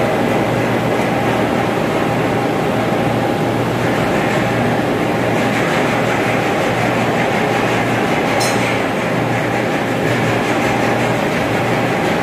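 Steady, loud rumble and hum of running ventilation machinery, with a constant low hum and a faint whine. A single brief sharp click comes about eight seconds in.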